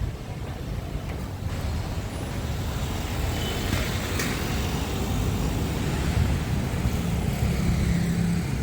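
Road traffic passing on a busy city street: a steady low rumble of vehicle engines, with one engine's hum growing louder near the end.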